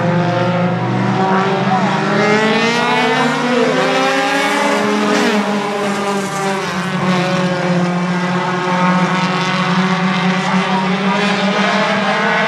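A pack of four-cylinder compact race cars racing together on a short oval. Several engines overlap, their notes rising and falling as the cars pass.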